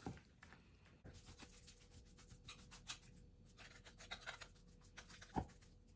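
Chef's knife chopping grilled chicken on a wooden end-grain cutting board: faint, irregular taps and scrapes of the blade, with one louder knock a little after five seconds in.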